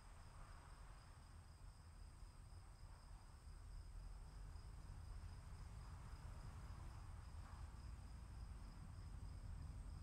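Faint outdoor storm ambience: a steady high drone of insects over a low rumble, which grows a little louder about three and a half seconds in.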